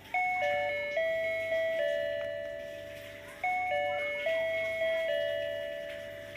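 A simple electronic tune played one note at a time, the notes stepping up and down, each starting sharply and then fading.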